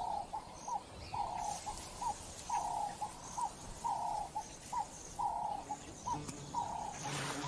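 A dove cooing steadily, repeating a short note followed by a longer one about every second and a half.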